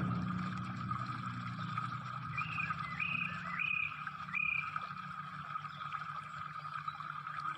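Four short chirping animal calls, about two-thirds of a second apart, over a steady high hum and a low rumble.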